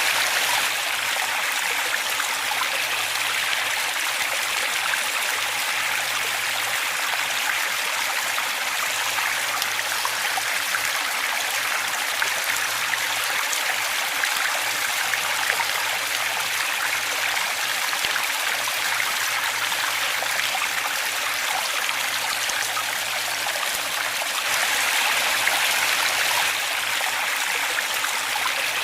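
Waterfall: a steady rush of falling, splashing water, growing slightly louder for a couple of seconds near the end.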